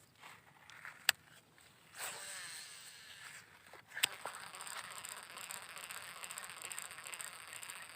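Fishing reel during a lure cast: a sharp click, a whoosh of line running off the spool, a second sharp click, then the steady whirring tick of the reel being cranked to bring the lure back.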